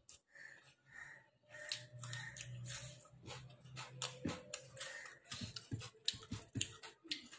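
Close-up chewing of food, with many short wet clicks and smacks of the mouth.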